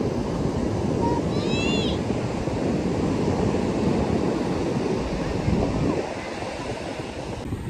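Sea surf breaking and washing up the beach, a steady rushing with wind buffeting the microphone. A short high-pitched squeal rises above it about one and a half seconds in.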